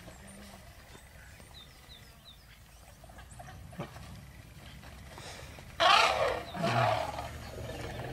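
An African elephant trumpeting loudly about six seconds in, followed at once by a second, lower call that ends in a falling rumble.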